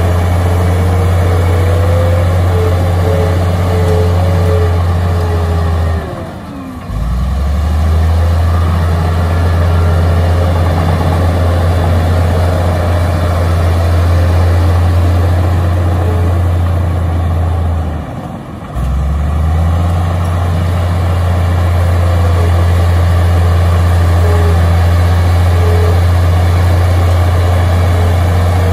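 Komatsu D53A crawler bulldozer's diesel engine running under load while pushing dirt. The engine note drops away briefly twice, about six seconds in and again around two-thirds of the way through, then picks back up. A faint whine sits over it.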